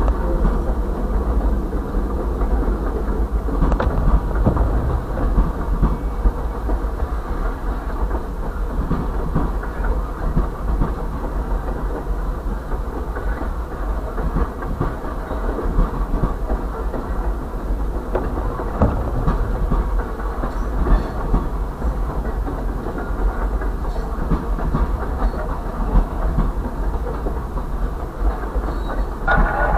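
Freight train rolling past: the cars' wheels clatter over the rail joints with a steady low rumble, heard through the windshield of a car.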